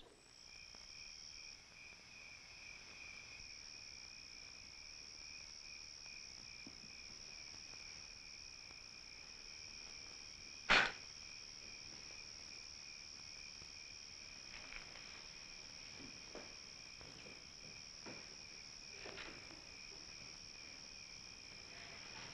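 Crickets chirping steadily in the night, a high trill with a pulsing chirp beneath it. A single sharp click about eleven seconds in.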